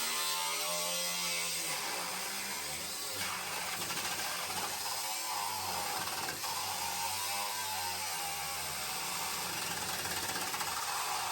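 A handheld power tool runs continuously on the steel of a VW Beetle frame head. Its pitch wavers up and down as the motor loads and unloads against the metal.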